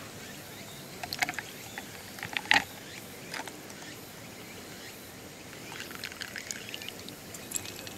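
Hot espresso from a stovetop moka pot poured in a thin stream over chunks of ice in a metal mug, with small clicks from the ice; a few sharp clinks come in the first seconds, and the pour is loudest in the last two seconds.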